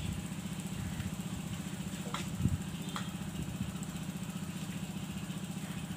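A small engine idling steadily with a low, fast, even throb. A few faint clicks come about two to three seconds in.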